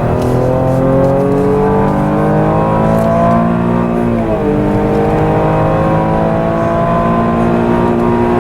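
2018 Holden Commodore's V6 engine accelerating hard at full throttle, its pitch climbing steadily, dropping sharply on an upshift about halfway through, then climbing again through the next gear.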